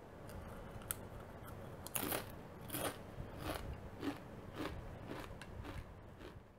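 Close-up crunching of a Doritos tortilla chip being bitten and chewed: a sharp crack about a second in, then a steady run of crisp crunches about every half second from about two seconds in.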